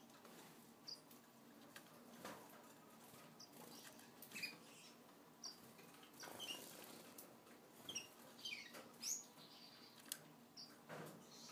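Cordon-bleu finch pecking at greens and egg in a plastic dish, making faint clicks and taps. Scattered short, high cheeps from small finches, some sliding down in pitch, come mostly in the second half.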